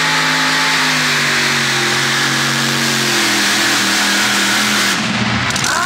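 Competition pulling tractor's engine running hard under load, its pitch slowly sinking as it bogs down against the sled, then dropping away abruptly about five seconds in.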